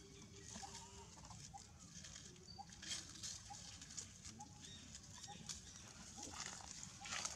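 Faint, short squeaking calls of a baby long-tailed macaque, repeating about every half second, with a few brief rustles and scuffs on dry leaves and dirt.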